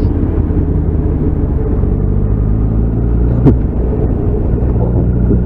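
Motorcycle engine running steadily at an even speed, with a single sharp click about three and a half seconds in.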